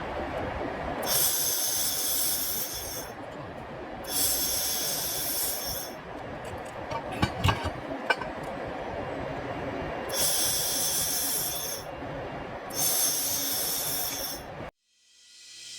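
Handheld fiber laser welder running a stainless steel tube weld. Four bursts of hiss, each about two seconds long, come over a steady machine noise, with a few clicks around the middle.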